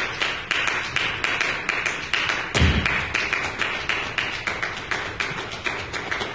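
Student percussion ensemble playing a fast, even pattern of drum strokes, about five or six a second, with a deep bass drum hit about two and a half seconds in.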